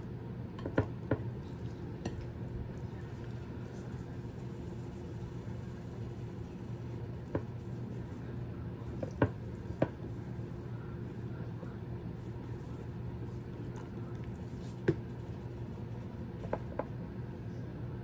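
Raw Cornish hens being handled and turned over on a platter as they are seasoned, with a few short, sharp clicks and taps from the seasoning shaker and containers, over a steady low hum.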